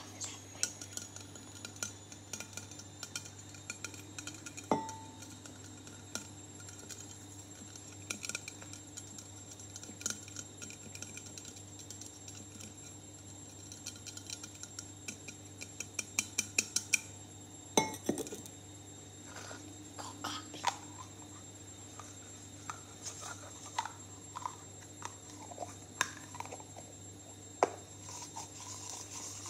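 Fingers and fingernails tapping and clinking on a metal water bottle, in scattered single taps, one of which rings briefly, and a quick run of about six taps a second a little over halfway through. Near the end the taps turn to lighter clicks of a clear plastic container being handled.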